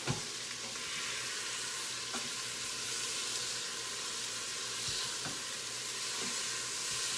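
Chicken sizzling as it sears in the pot of a Pampered Chef Quick Cooker on its sear setting, with a few light clicks of a utensil against the pot as the pieces are turned.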